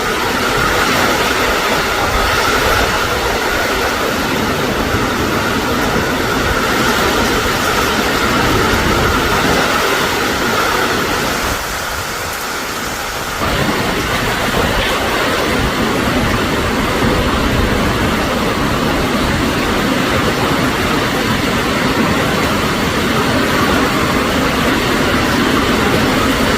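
Heavy wind-driven rain in a strong wind, a loud steady rush with low rumbling gusts. It eases briefly about halfway through, then comes back as strong.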